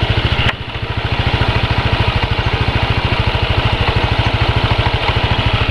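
Motorcycle engine idling steadily with an even, fast pulsing beat. A brief click and dip in level come about half a second in.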